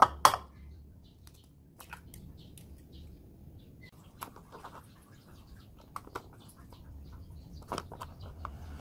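An egg cracked sharply once against a ceramic bowl about a quarter-second in, followed by scattered faint taps and rustles as a plastic bag of flour is handled and poured over the bowl.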